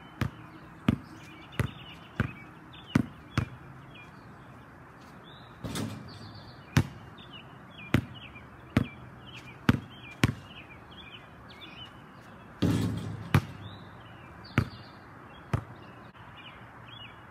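Basketball bouncing on a concrete driveway: single sharp bounces about once a second, with a gap of about two seconds after the first few and two longer, rougher noises about six and thirteen seconds in. Birds chirp faintly in the background.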